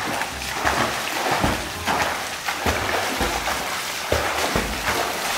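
Water splashing as a beginner swimmer's arms and legs thrash the surface of a swimming pool: a continuous rush of spray broken by irregular splashes, one or two a second.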